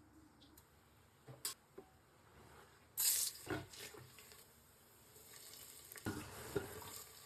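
Food frying in hot oil in a pan, with a few utensil clicks and knocks. A loud burst of sizzling comes about three seconds in and fades, and a steady sizzle builds again near the end.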